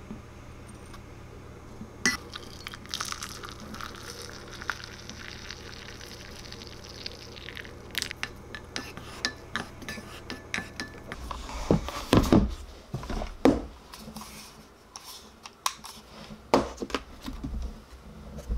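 Green tea being made in a ceramic mug: liquid poured in with a steady hiss over the first few seconds, then a wooden spoon stirring and clicking against the mug. In the second half there are several louder dull knocks, as of the mug or other items being set down on the table.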